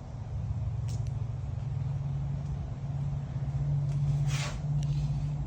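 A vehicle engine running steadily with a low hum, and a short hiss about four seconds in.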